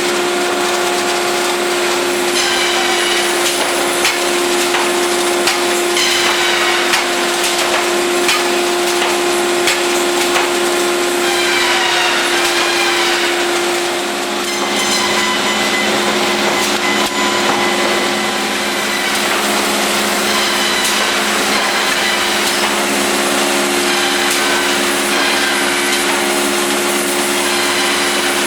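Industrial bandsaw running: a steady machine hum with higher tones that slide in pitch several times.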